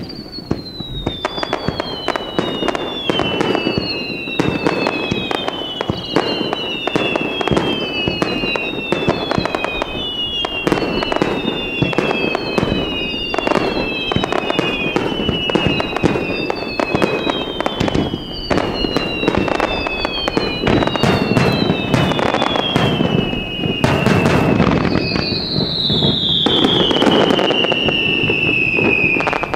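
Fireworks display: a rapid barrage of bangs and crackles over a low rumble, with a string of overlapping whistling fireworks, each whistle falling in pitch. Near the end one louder, longer whistle falls.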